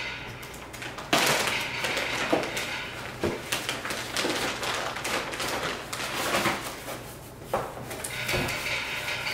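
Clear plastic packaging bag crinkling and rustling as it is handled and opened, with small clicks and knocks from the parts inside and a thud near the end.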